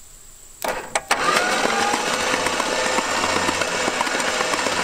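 A couple of clicks, then the starter motor cranking the 1970 Plymouth Satellite's V8 over for its first turn after sitting 35 years: a steady mechanical chatter with a whine that rises as the starter spins up. The engine turns but does not fire.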